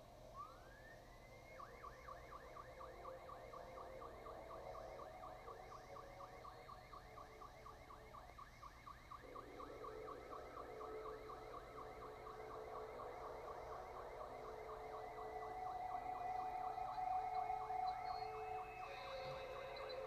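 A siren sweeps up in pitch once, then warbles rapidly up and down about four times a second. Rushing water is heard beneath it, swelling from about halfway through.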